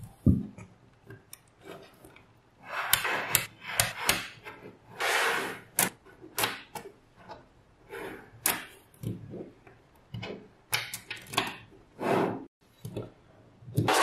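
Small magnetic metal balls clicking and clacking as they snap together, in scattered sharp clicks. A few longer rattling scrapes come as rows of balls are pushed and rolled against each other on a tabletop.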